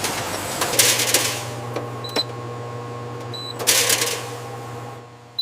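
Flour-mill machinery running: a steady low hum, two loud hissing bursts about a second in and about four seconds in, a few sharp clicks, and three short high beeps.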